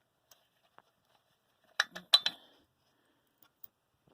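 Small metal engine parts clinking and clattering as they are handled during teardown: a quick cluster of sharp clanks about two seconds in, with a few faint ticks around it.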